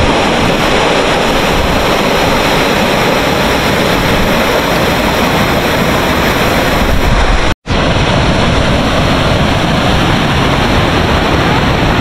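Waterfall at Tamarind Falls (Sept Cascades) pouring, a loud, steady rush of water. It is broken once by a sudden split-second silence about seven and a half seconds in.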